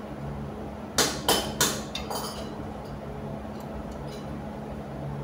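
Metal tapping against metal fittings: three sharp clinks in quick succession about a second in, then a fainter one with a short ring.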